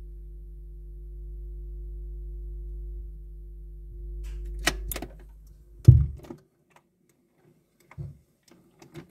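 A 78 rpm record player being set going: a steady low hum with a faint held tone, two sharp clicks about five seconds in, and a thump near six seconds that cuts the hum off, then a few light ticks and taps.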